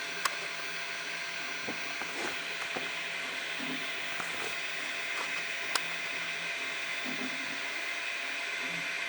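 Flashforge Finder 3D printer running a print: a steady mechanical whirr from its motors and fan, with two sharp clicks, one just after the start and one a little past halfway.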